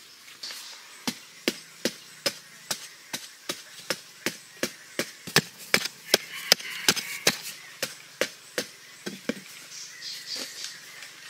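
A hand digging tool chopping repeatedly into packed earth to loosen soil, sharp strikes about two to three a second, beginning about a second in and thinning out near the end.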